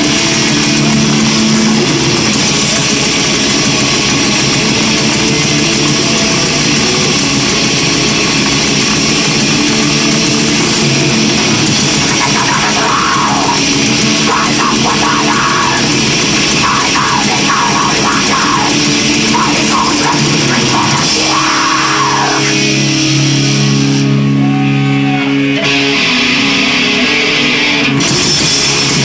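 Heavy metal band playing live and loud: distorted electric guitars, bass and a drum kit in a dense, unbroken wall of sound. The top end thins out briefly near the end.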